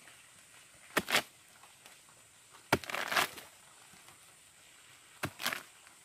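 Rotten sago-palm pith being dug into and broken apart by hand and blade: three short crunches, each starting with a sharp knock, about one, three and five seconds in.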